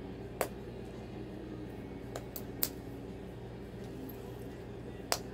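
A cockatoo chewing a wooden toy: about five short, sharp clicks and cracks from its beak on the wood and chain, one near the start, three close together in the middle and one near the end, over a steady low hum.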